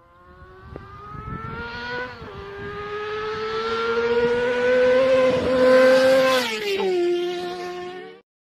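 High-revving motorcycle engine accelerating. The pitch climbs, drops sharply about two seconds in at an upshift, climbs again, then falls away near the end before the sound cuts off abruptly.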